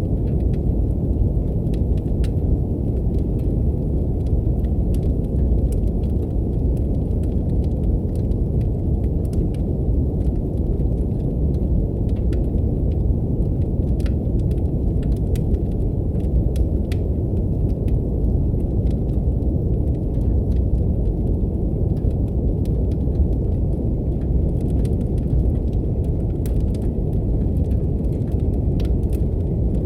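Steady brown noise, a deep even rumbling hiss, mixed with the sparse snaps and pops of a crackling wood fire in a fireplace.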